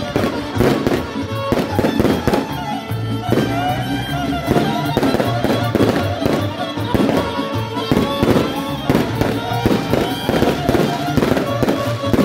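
Live folk band playing fast kolo dance music, with a melody over a quick, steady beat of about three strokes a second.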